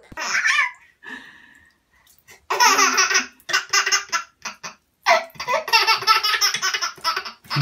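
A baby laughing in several long bursts of belly laughter.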